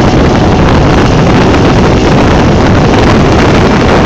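Speedboat running at speed, its engine noise mixed with heavy wind buffeting the microphone; loud and steady throughout.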